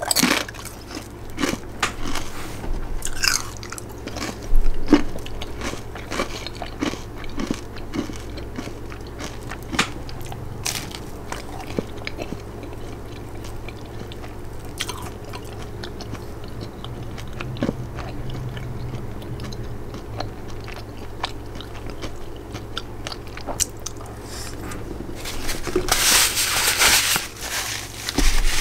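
Close-up chewing of potato chips dunked in tomato soup: repeated crunching bites and chewing. A longer, louder stretch of crackly crunching comes near the end.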